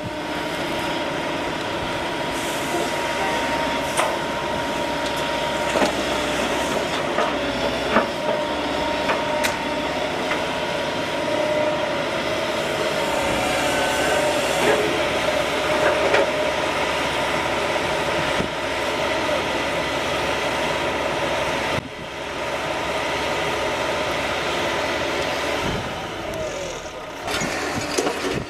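Caterpillar M315 wheeled excavator working, its diesel engine running under load with a steady hydraulic whine while it loads a tipper truck. Occasional sharp clanks and knocks of the bucket and dropped rubble come through the engine sound.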